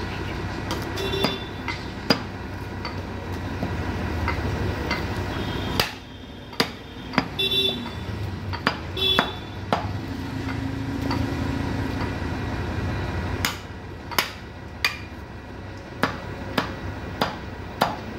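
A butcher's knife chopping beef on a wooden chopping block: a long series of irregular sharp knocks, some with a brief metallic ring from the blade, over a steady low background rumble.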